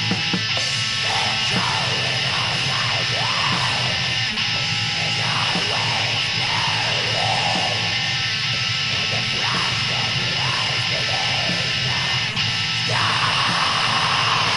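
Black metal from a demo recording: a dense, steady wall of distorted electric guitar with harsh shrieked vocals rising and falling over it.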